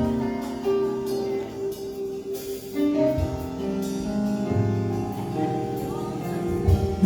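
Instrumental music with long held chord notes over a bass line that changes every second or so.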